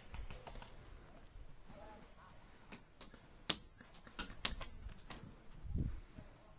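Scattered sharp pops of shots from the guns in a woodland skirmish game, a dozen or so spread over a couple of seconds, the loudest about three and a half seconds in. Near the end there is one dull low thump.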